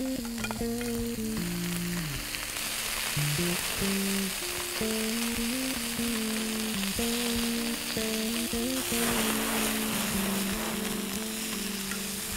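Pork and chicken shashlik skewers sizzling on a hot grill, a steady hiss that grows stronger near the end, under background music with a slow stepping melody.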